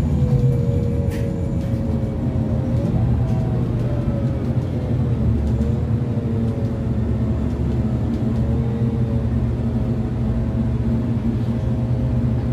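Scania N280UB compressed-natural-gas city bus heard on board while driving, its engine giving a steady low rumble with a tone that rises and falls in pitch as the bus speeds up and slows.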